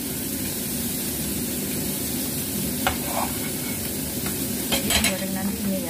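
Pindang fish frying in hot oil, with a steady sizzle. A few short knife clicks on the cutting board come about three and five seconds in, as chopped garlic and shallots are scooped off the board with a cleaver.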